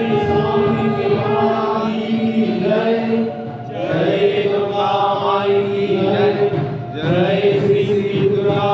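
Voices chanting homa (Hindu fire-offering) mantras together in long held tones, with short breaks between phrases about three and a half and seven seconds in.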